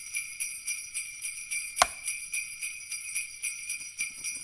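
Sleigh bells jingling in a steady rhythm, about four shakes a second, with one louder hit a little under two seconds in.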